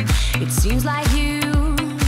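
Background pop music with a steady drum beat and singing.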